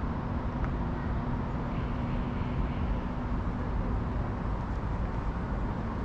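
Steady low background rumble of urban ambience, with a faint steady hum for the first few seconds that stops about two thirds of the way in.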